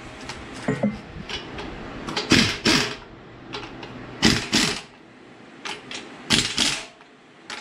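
A cordless impact wrench running down the carrier bearing cap bolts on a Ford 8.8 differential, in three short bursts about two seconds apart, snugging them before they are torqued.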